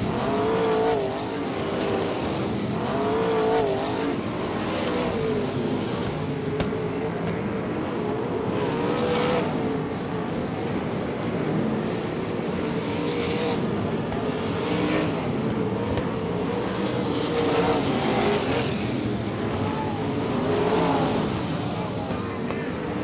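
Pack of 360 wingless sprint cars with V8 engines running laps on a dirt oval. The engines rise and fall in pitch as the cars pass one after another.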